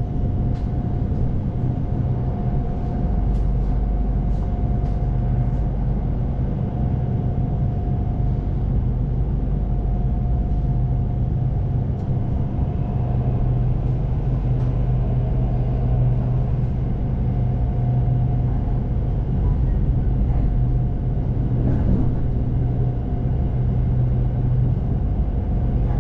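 SRT Red Line electric commuter train running: a steady low rumble and hum, with a faint thin tone that fades in and out.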